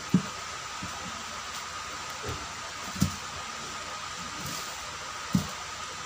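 Steady whirring hiss with a faint whine, as of an electric fan running, with three short soft knocks from hands handling a nylon cord: just after the start, about three seconds in, and near the end.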